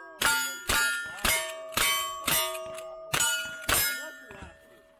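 Lever-action rifle fired rapidly at steel targets: seven shots about two a second, with a short pause after the fifth. Each shot is followed by the ringing clang of the hit steel plate.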